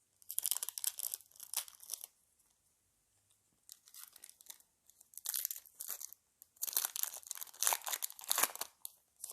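Foil wrapper of a Yu-Gi-Oh booster pack being torn open and crinkled, in three bouts of rustling.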